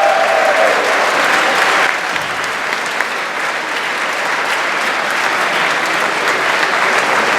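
A large crowd of young men applauding, with a held cheer of voices at the start that fades out within the first second.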